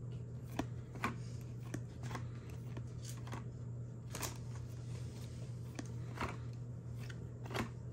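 Topps Chrome trading cards being flipped through one by one: a string of short, irregular swishes and clicks as each card slides off the stack, over a steady low hum.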